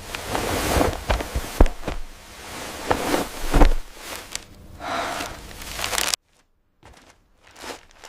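AI-generated food ASMR sounds: crunching and crackling with sharp clicks. They cut off suddenly about six seconds in, leaving near silence with a few faint sounds.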